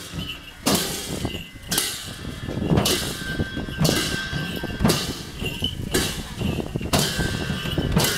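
Chyabrung drums beaten for a dance in a steady beat, about one loud strike a second, each strike followed by a short ringing tail.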